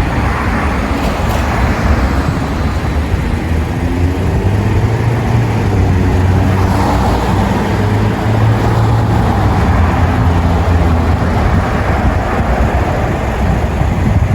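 A motor vehicle running steadily: a low engine hum under constant road and wind noise.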